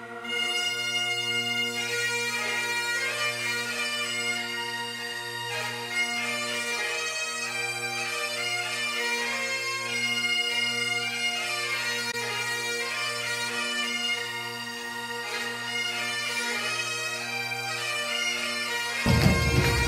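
Great Highland bagpipes playing a tune over steady low drones. Near the end the sound cuts abruptly to a louder, rougher recording with a heavy low rumble.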